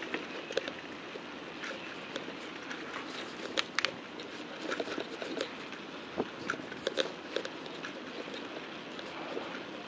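A bicycle being ridden: a steady rush of noise with many irregular small clicks and crackles as the bike rattles over the road surface.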